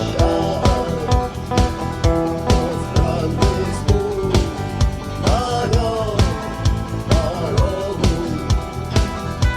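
Rock band music with no words sung: a steady drum-kit beat under bass and guitar, and a lead melody line that slides up and down in pitch.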